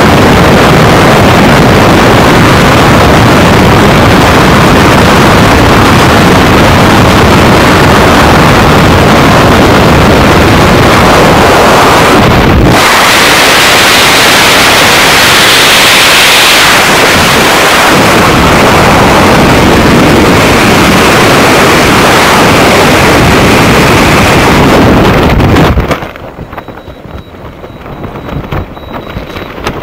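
Freefall wind blasting the camera microphone during a skydive, loud and steady. Near the end it drops sharply to a softer, fluttering wind under the open parachute.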